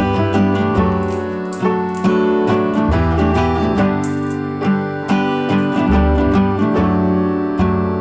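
Background music: guitar with keyboard over a steady beat, with sustained bass notes that change every couple of seconds.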